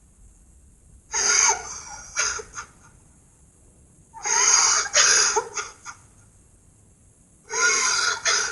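A cartoon character crying: three loud bouts of sobbing, each trailing off into short gasping catches of breath, with pauses between.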